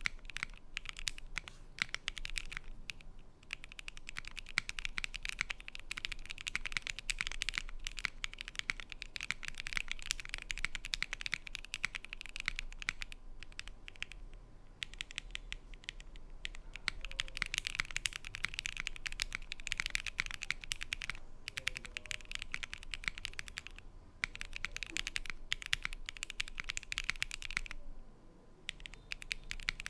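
Fast typing on a Badger60 60% mechanical keyboard with stock Kailh BCP switches and JTK BrownBear keycaps, in an O-ring-mounted board with an aluminium plate and no foam: a dense run of keystroke clicks, broken by short pauses about 3, 14, 24 and 28 seconds in.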